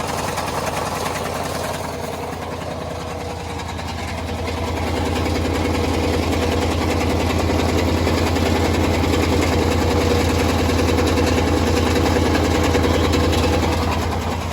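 Two-door Chevrolet Tahoe's engine running with a fast, steady knocking, getting louder about five seconds in. It is the unexplained noise that others have suggested could be a loose flywheel bolt.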